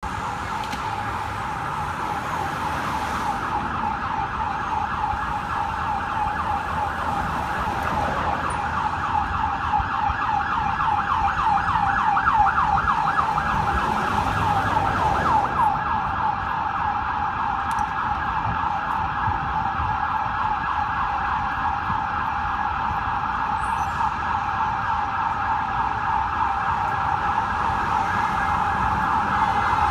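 Ambulance siren sounding continuously, switching to a fast yelp for several seconds around the middle, over the low rumble of traffic.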